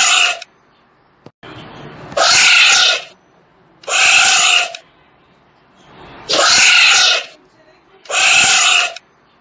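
Tapir calling: a series of high-pitched squealing calls, each under a second, repeating about every two seconds.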